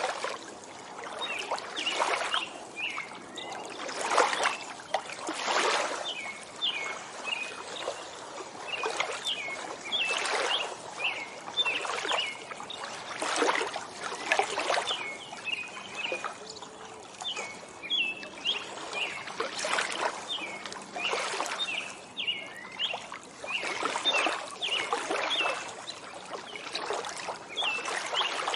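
Small waves lapping and splashing at a lakeshore in irregular surges every second or two, with songbirds chirping in quick runs of short, high notes.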